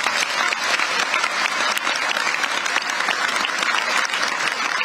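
Large audience applauding, a dense steady clapping of many hands.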